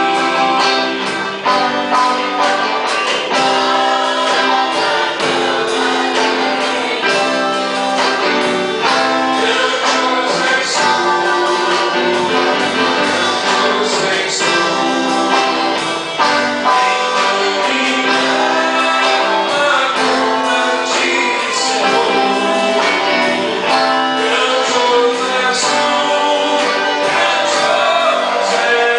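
Church band performing a worship song: voices singing over instruments, with a steady beat.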